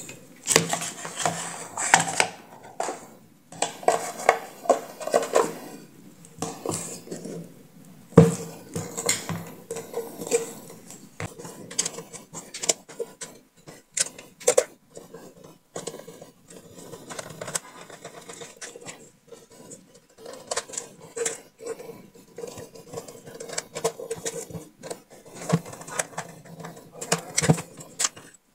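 Plastic housing parts of a Honda Activa 125 instrument cluster being handled and fitted together on a workbench: scattered clicks, taps and clatter of hard plastic, with one sharper knock about eight seconds in.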